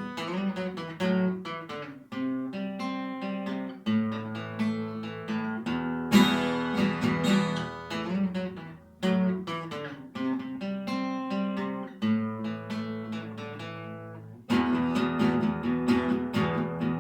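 Acoustic guitar playing alone, picked chords with notes ringing out, and a louder, fuller strummed passage near the end.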